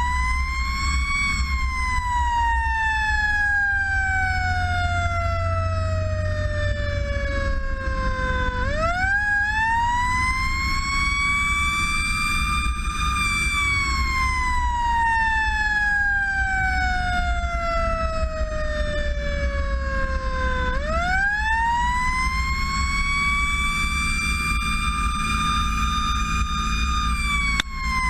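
Siren of a Seagrave fire engine, rising quickly and then falling away slowly in long wails, three times about twelve seconds apart. Under it runs a steady low drone of the truck's engine and road noise.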